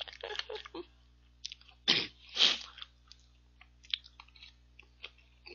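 Two loud, breathy bursts of a man's breath about two seconds in, then sparse small clicks of a metal spoon and chewing as he eats a spoonful of ice cream mixed with crunchy puffed wheat cereal.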